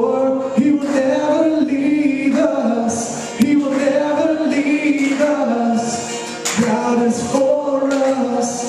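Live contemporary worship song: a man singing lead into a microphone over his acoustic guitar, with the congregation singing along.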